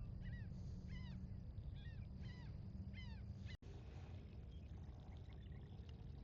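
Birds calling, a run of short chirps that drop in pitch, about two a second, over a steady low rumble. The sound cuts out for an instant about three and a half seconds in, and the chirps that follow are fainter.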